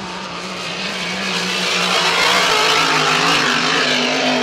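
Grand Prix-class hydroplane's supercharged V8 running flat out on a time-trial lap, the engine growing louder as the boat approaches and passes. Its note rises slightly in pitch near the end.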